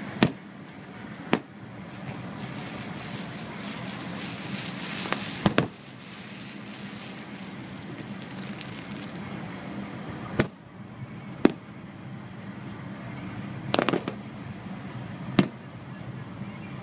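Aerial firework shells bursting, about seven sharp booms spaced irregularly a second to several seconds apart, over a steady background hum.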